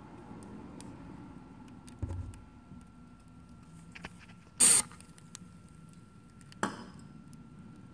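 A short, loud hiss of aerosol nonstick cooking spray just past halfway, and a second, briefer hiss near the end, over faint crinkling of a plastic bag, with a low thud about two seconds in.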